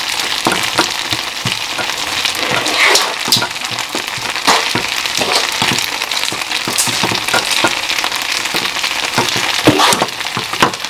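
Chicken stir-fry sizzling and crackling in a hot pan, with short sharp clicks and taps scattered throughout, from a wooden spatula stirring a starch-and-water slurry in a ceramic bowl.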